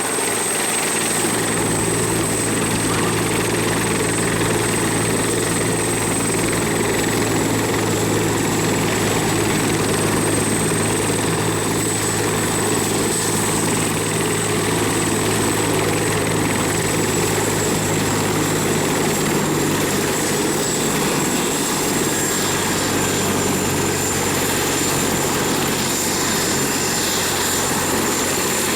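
Bell 412 helicopter running, its twin turboshaft engines and rotor making a steady sound with a continuous high turbine whine that drifts slightly lower. Some of the low rotor tones fall away about two-thirds of the way through.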